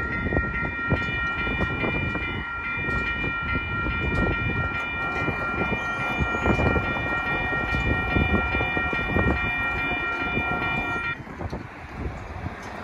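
Railroad crossing warning bell ringing steadily while the crossing gates lift after a train has passed. It cuts off about eleven seconds in, once the gates are up. A low rumbling noise runs underneath.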